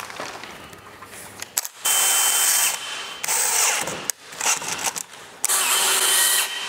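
DeWalt cordless drill driving screws into cement board, running in three bursts of about a second each with a steady motor whine.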